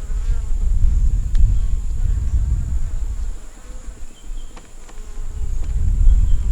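Honeybees buzzing around an opened nuc hive, with a few light clicks; the buzz eases off in the middle and swells again near the end.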